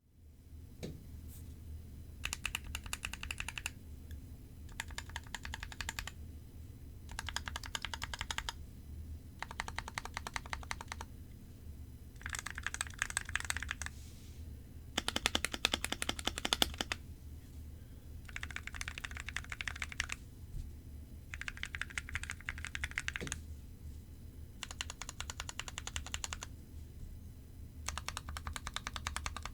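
Typing on an NK65 Entry Edition mechanical keyboard with lubed Gateron Clear linear switches. It comes in short runs of rapid keystrokes, about ten of them, with brief pauses between. The loudest run, a little past halfway, has a deeper clack.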